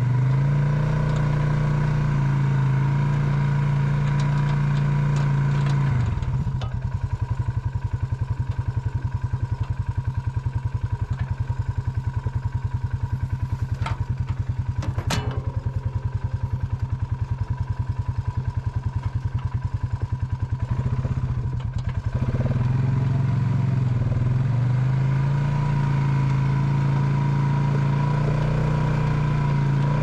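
Polaris Sportsman ATV engine running while plowing snow. It drops to an evenly pulsing idle about six seconds in, with a single sharp click midway, then picks up again near the end as the machine moves off.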